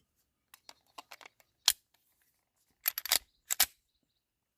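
Scattered sharp mechanical clicks and knocks, like handling noise. The loudest is a single click about a second and a half in, and two quick clusters of clicks follow near the three-second mark.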